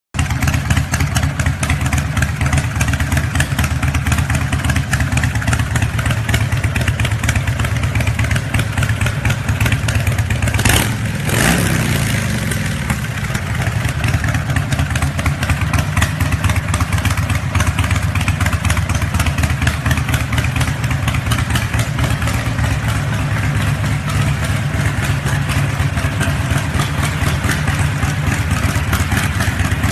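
Harley-Davidson motorcycle's V-twin engine idling with a steady, rapid pulse. Once, about eleven seconds in, a quick blip of the throttle sends the pitch up, and it falls back to idle.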